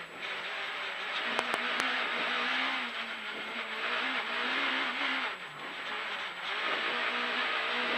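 Suzuki rally car's engine revving hard, heard from inside the cabin, its pitch rising and falling through the gears. The revs drop about five and a half seconds in, then climb again; a few sharp clicks about a second and a half in.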